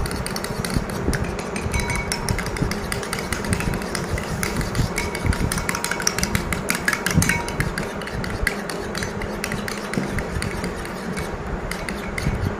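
A metal spoon beating a raw egg in a glass bowl: rapid, steady clicking and tapping of the spoon against the glass, with a faint ring from the bowl now and then.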